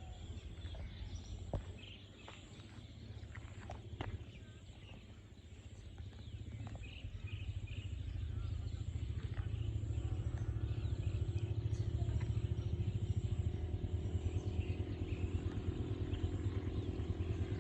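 A vehicle engine running, its low pulsing hum growing louder from about seven seconds in and then holding steady. Faint chirps and light clicks sound in the quieter first half.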